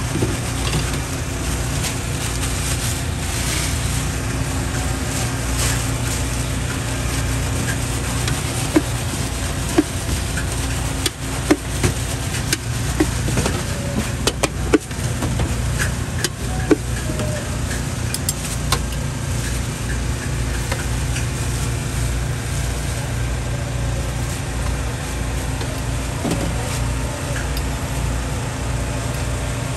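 Steady low mechanical hum, with scattered sharp clinks and taps of a metal spoon on a steel bowl and counter while popiah filling is scooped and spread, most of them in the middle stretch.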